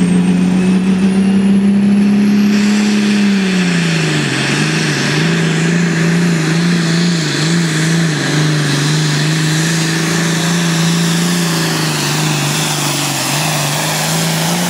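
John Deere pulling tractor's diesel engine held at high revs, a high whine climbing over the first couple of seconds. About three and a half seconds in the engine note drops as it takes the load of the sled, then runs on wavering under load as the tractor pulls down the track.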